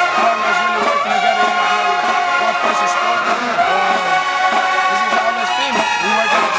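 Brass band music with horns holding long notes.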